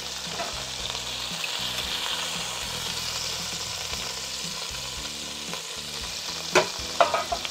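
Olive oil and butter sizzling steadily in a stainless steel pan as browned, flour-dusted chicken breasts are lifted out with tongs, with a few sharp clicks near the end.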